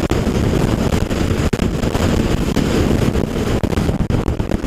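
Wind buffeting a helmet-mounted microphone on a motorcycle riding at speed, with the bike's engine running underneath.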